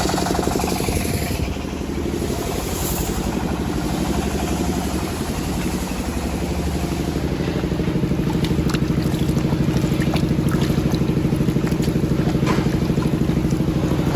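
Engine driving a circular sawmill, running steadily with a fast even throb. A hissy cutting noise near the start fades out within the first couple of seconds, and a few light clicks and knocks come later.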